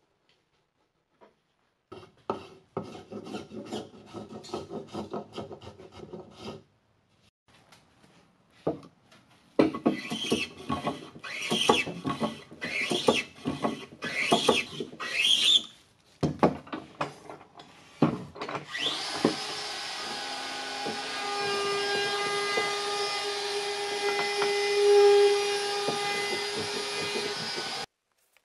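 Hand tools cutting pine: a run of quick scraping chisel cuts, then separate hand-plane strokes along a beam, each with a rising hiss. Then an electric sander starts, runs steadily with a humming tone, and cuts off shortly before the end.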